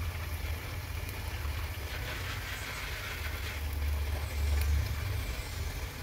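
Chicken cooking in a pan under a glass lid: a steady low rumble with a soft hiss that swells briefly in the middle.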